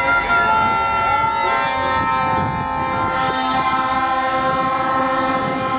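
Several plastic fan horns (vuvuzela-type) blown at once: overlapping steady blaring tones at different pitches, some bending slightly.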